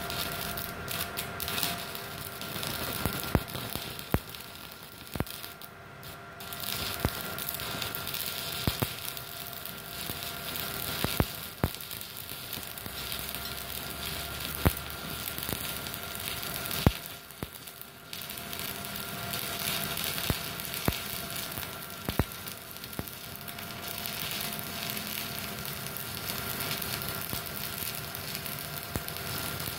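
Stick-welding arc powered by a MultiPro Solid 125 A-ST IGBT inverter welder: steady crackling and sizzling with frequent sharp pops. The arc briefly drops out about 17 seconds in, then strikes again.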